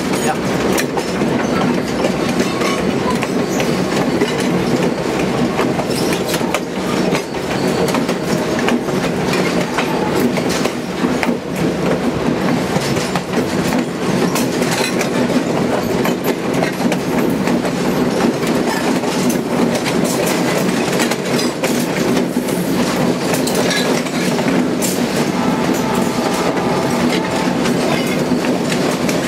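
Passenger train rolling along the track, heard from the moving car: a steady rumble of wheels on rail with clicks as the wheels pass over rail joints.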